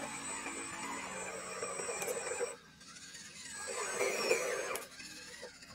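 A 1/12-scale RC crawler's small electric motor and gearbox whining and grinding as it climbs over rocks and dirt. It cuts out for a moment about halfway, then comes back, rising and falling in pitch, before dropping off near the end.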